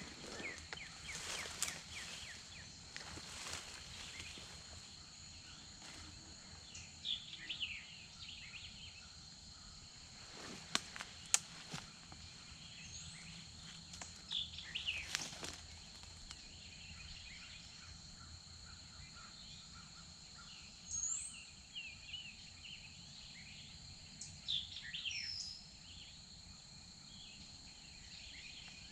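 Woodland ambience: scattered short songbird chirps over a steady high drone, with a few brief rustles and sharp clicks in the first half.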